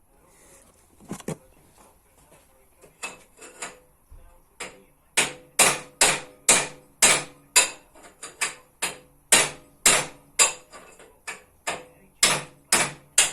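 Copper hammer tapping a steel pipe pushed up the steering head tube of a Peugeot Speedfight scooter frame, driving out the steering bearing housing. A few light, scattered taps at first, then steady sharp metallic strikes about two a second from about five seconds in, each with a short ring.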